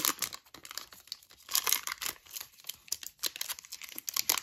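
Foil wrapper of a Panini Certified basketball card pack crinkling and tearing in the hands, in irregular crackly bursts, loudest right at the start.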